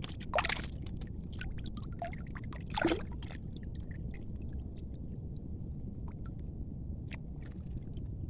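Shallow water sloshing and splashing around a person wading, with a couple of louder splashes near the start and about three seconds in over a steady low rumble.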